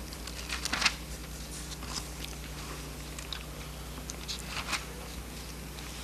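Room tone of an old recording: a steady low electrical hum and hiss, with scattered small clicks and rustles, a short cluster of them about a second in.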